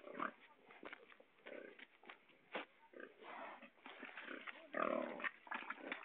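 Pigs grunting in short, irregular bursts, loudest about five seconds in.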